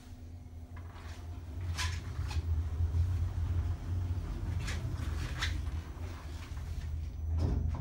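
Lutz machine-room-less traction elevator car in motion: a low steady hum that swells over the first couple of seconds, with a few light clicks from the cab. There is a short louder noise near the end.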